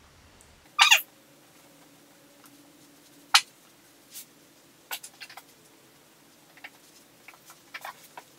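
Scattered soft taps and small clicks from a beauty sponge being dabbed against the skin to blend in cream contour, with a brief louder noise just under a second in and one sharp click past three seconds, over a faint steady low hum.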